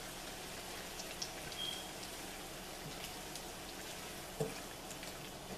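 Sliced pork, bell peppers and onions sizzling in BBQ sauce in a skillet, a steady hiss, while tongs toss them, with a few light clicks and one knock about four seconds in.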